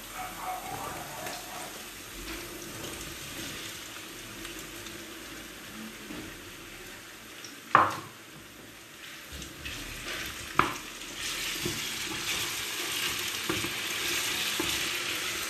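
Diced potatoes frying in oil in a pan with onion and garlic, sizzling steadily as they are stirred. Two sharp knocks against the pan, the louder one about halfway through; the sizzling grows louder in the last few seconds.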